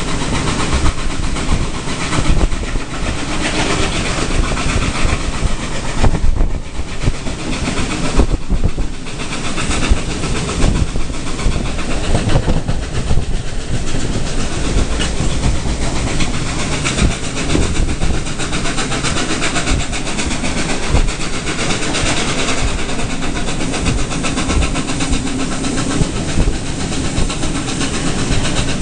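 Passenger train carriage in motion: the steady rumble and clatter of wheels on the rails, mixed with rushing air.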